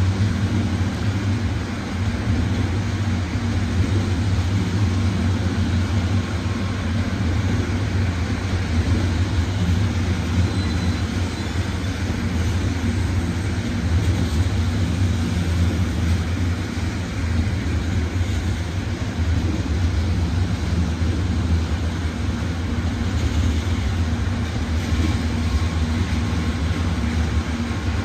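A vehicle in motion, giving a steady low rumble with no sharp knocks or changes.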